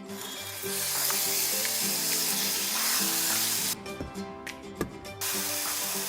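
Food sizzling as it fries in hot oil, in two stretches: starting about half a second in and cutting off abruptly a little past halfway, then starting again about five seconds in. Background guitar music plays underneath.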